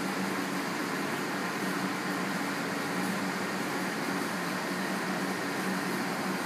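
Steady whir of cooling fans, with a low hum underneath and no change throughout.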